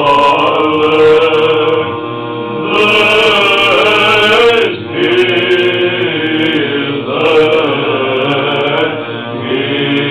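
Orthodox church chant sung in Romanian by voices without instruments: a slow melody with long held notes, broken by short pauses between phrases.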